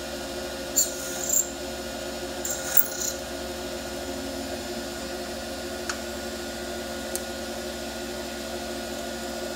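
Small jeweller's bench lathe running with a steady hum while a hand-held cutting tool scrapes silver from the inside of a spinning sterling silver ring, enlarging it by one size. The scraping comes in two short, bright bursts in the first three seconds, and two faint ticks follow later.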